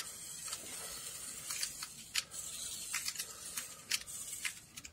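Revell mini RC car driving on a wooden parquet floor: a faint, steady, high whir from its tiny electric motor and gears, with irregular small clicks throughout.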